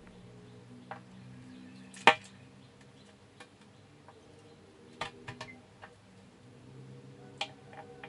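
Sugar glider moving about on the box floor: scattered sharp clicks and taps of its feet and claws, the loudest about two seconds in, a quick cluster of four around the middle and two more near the end.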